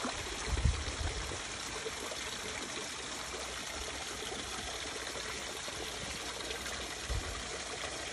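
Shallow stream running steadily over stones, with a dull low thump about half a second in and another near the end.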